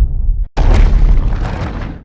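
Two Godzilla (2019) sound effects in a row, both deep booming impacts like explosions. The first fades out about half a second in, and after a short gap a second, louder boom starts and dies away near the end.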